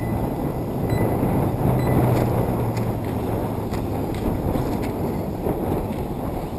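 Wind rumbling on the microphone over the faint running of radio-controlled 2WD short-course trucks racing on a dirt track, with a steady low hum that fades out about three seconds in.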